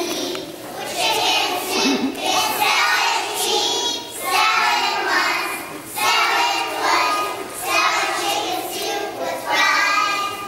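A class of young children singing together in unison, in phrases about two seconds long with short breaks between them.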